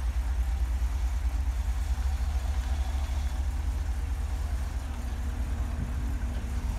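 1978 Dodge Street Van's engine idling with a steady, pulsing low rumble as the van creeps slowly forward.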